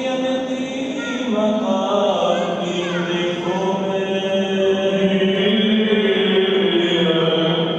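Byzantine-style Orthodox liturgical chant from the Greek Orthodox wedding service: voices singing long, slowly moving notes over a steady low note.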